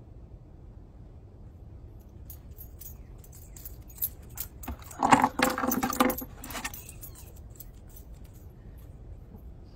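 Metal jingling and clinking in a burst of a few seconds, loudest near the middle.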